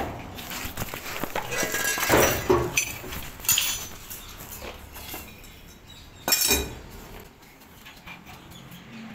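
Metal hand tools and parts clinking and scraping against each other and the concrete floor in several separate bursts, the loudest about two seconds in and again just after six seconds.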